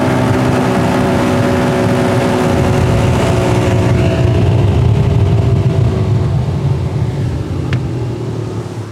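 Outboard motor running steadily at speed with the boat under way, its engine drone over rushing water and wind. It eases off slightly in pitch and loudness in the last few seconds.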